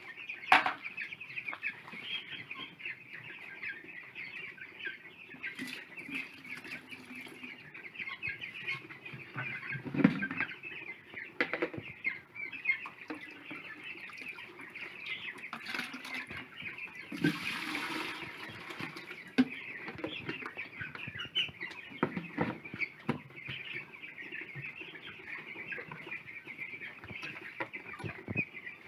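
A flock of chickens clucking and chirping on and on, many birds calling over one another. A few sharp knocks and a short rustling rush about seventeen seconds in break through the chatter.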